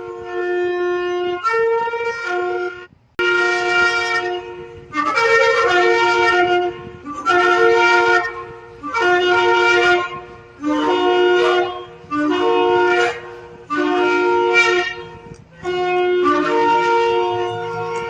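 Shofar (ram's horn) blown in a series of about ten short blasts, each lasting a second or two. Each blast steps between a lower and a higher note.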